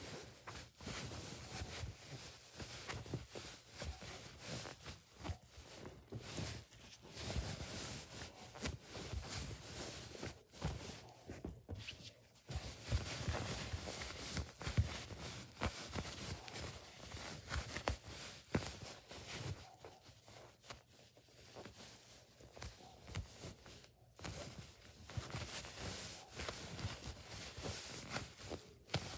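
Foam squishy toys squeezed and turned in the hands over a fabric bedspread: quiet, irregular rustling and soft crackling of foam against fingers and cloth, with a few brief lulls.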